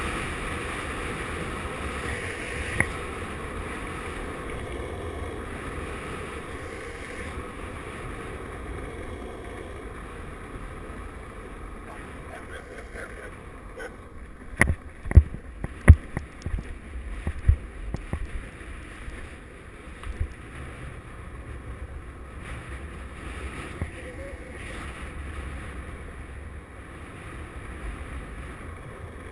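Longboard wheels rolling down an asphalt road, with head wind buffeting the microphone in a steady rushing rumble that slowly eases. About halfway through, a quick run of sharp loud knocks, and a few single clicks elsewhere.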